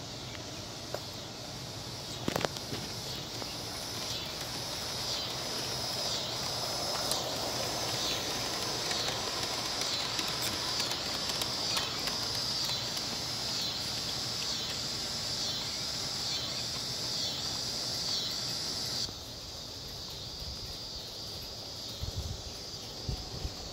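Live-steam Aster/LGB Frank S locomotive running past with a steady steam hiss and a rhythmic chuffing pulse, growing louder and then cutting off suddenly about three-quarters of the way through. Scattered clicks of wheels on the track come through it.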